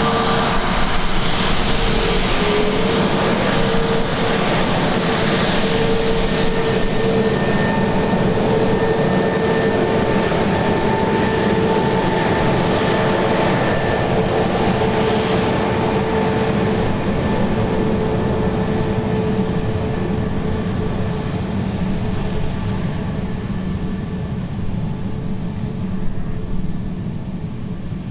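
Twin jet engines of a British Airways Airbus A321neo at taxi power: a steady rushing noise with a high whine, fading over the last several seconds as the airliner moves away.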